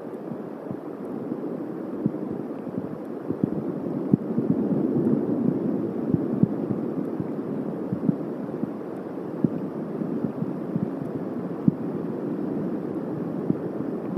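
Thunderstorm rain falling around the nest, a steady wash with many irregular drops tapping close to the microphone, heavier for a couple of seconds about four seconds in.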